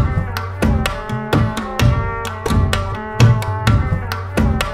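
Background music with a steady drum beat over sustained pitched instruments.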